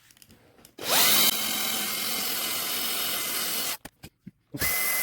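Small power drill spinning up and running steadily while drilling out the rivet of a diecast toy car, stopping after about three seconds, then running again briefly near the end.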